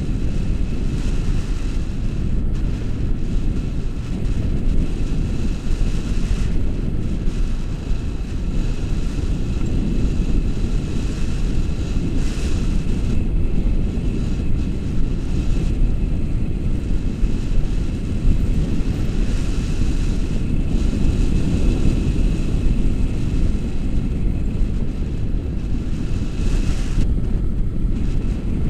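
Airflow buffeting a camera microphone during a tandem paragliding flight: a loud, steady low rumble with a faint, steady high whistle.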